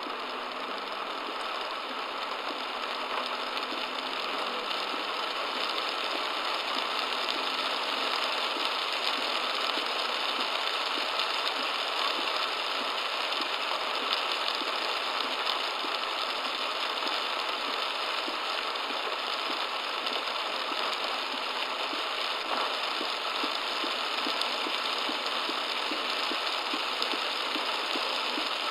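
Torrential rain drumming on a car's roof and windshield, heard by the car's dashcam inside the cabin, as a dense, steady hiss of fine ticks. The car's engine runs underneath.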